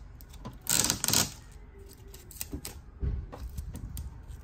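Blue packing tape and clear plastic protective film being peeled off a printer's control panel: a short ripping, crinkling rustle about a second in, followed by scattered light clicks of fingers on the plastic panel and a soft thump.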